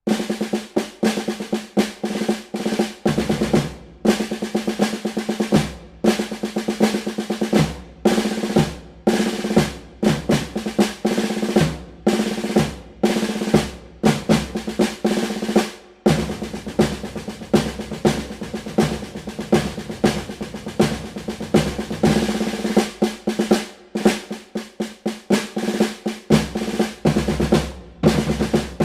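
Snare drum played in patterns of fast rolls and accented single strokes, with short breaks between phrases and deeper drum hits underneath in places.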